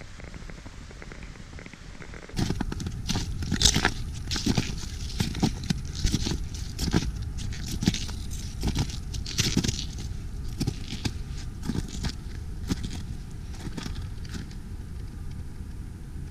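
Footsteps crunching and scraping on an icy, leaf-covered trail, about two steps a second, starting a couple of seconds in and stopping near the end, over a steady rumble of wind on the microphone.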